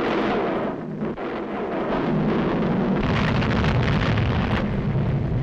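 Sound effect of a volcanic eruption from a 1940s animated film soundtrack: a continuous, loud rumble of explosions, growing heavier in the low end about a second and a half in.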